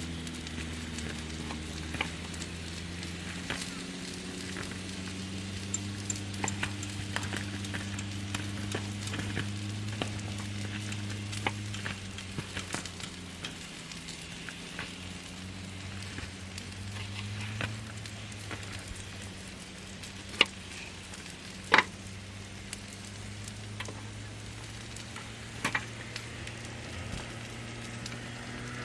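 Food sizzling and crackling as it fries in a pan, with a few sharp clicks, the loudest two about twenty seconds in.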